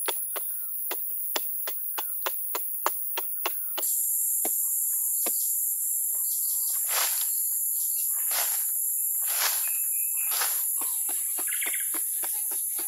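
Digging in soil with a wooden pole and by hand: a run of quick, evenly spaced taps, about four a second, then several longer scrapes of earth. A steady high insect drone runs underneath.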